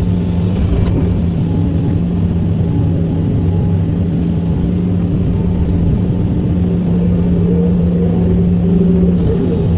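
SANY SY365H Pro excavator's diesel engine running steadily with a low drone, while it works moving coal. A higher tone rises and swells about seven to nine seconds in, with the loudness climbing slightly.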